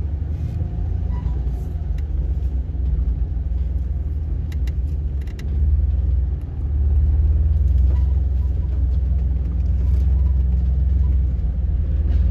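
Low, steady rumble of a four-wheel drive's engine at crawling pace, heard from inside a vehicle's cab, growing louder about six seconds in. A few faint clicks come around the middle.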